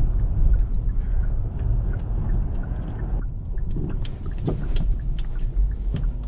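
Car driving on a snow-covered road, heard from inside the cabin: a steady low rumble of engine and tyres, with scattered faint clicks in the second half.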